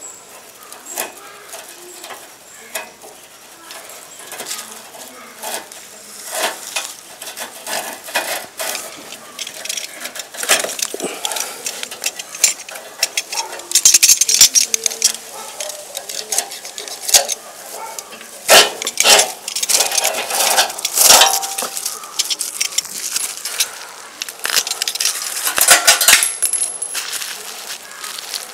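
Scattered metallic clinks, clicks and knocks from hands working at the front of a motorcycle, growing louder and busier about a third of the way in.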